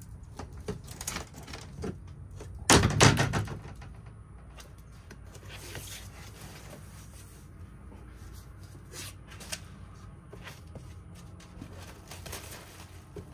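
Unpacking a wooden shipping crate: scattered knocks and clicks of handling, with one loud thump about three seconds in, then the rustle of a large packing sheet being lifted out around six seconds in.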